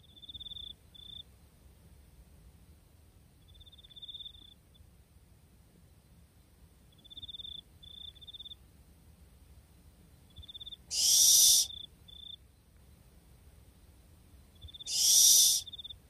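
Barn owl calls: several short, quiet, trilling calls on one high pitch, then two loud hissing screeches, each under a second, about eleven and fifteen seconds in.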